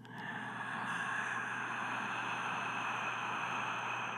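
A woman's long, steady breathy exhale, unvoiced and even throughout.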